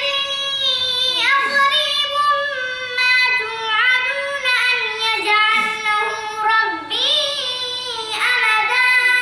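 A young boy reciting the Quran aloud in melodic tajweed chant, his high voice holding and bending long drawn-out notes, with brief pauses for breath.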